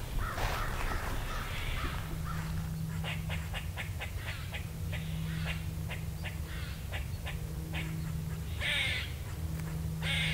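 Gray squirrels barking: a quick run of short barks, about three or four a second, through the middle. Crows caw at the start and near the end.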